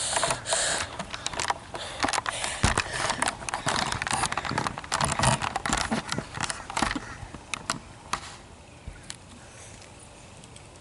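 Handling noise from a small handheld camera: dense rubbing and clicking as it is moved about, thinning to a few scattered clicks once it is set down on a tabletop.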